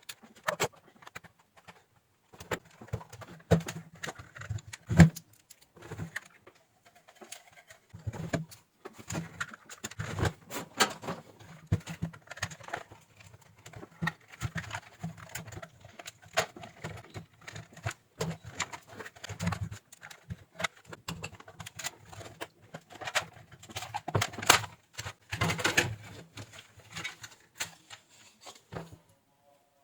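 Irregular clicks, taps and knocks of a plastic hair dryer casing and small metal parts being handled and unscrewed as the dryer is taken apart.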